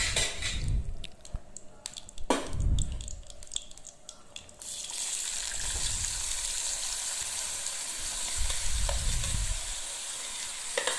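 Water-soaked pieces of elephant foot yam being scraped off a steel plate with a ladle into hot oil in a kadai: first scattered clinks and knocks of the ladle on the plate, then, about four and a half seconds in, a steady sizzle starts as the wet pieces hit the oil and keeps going.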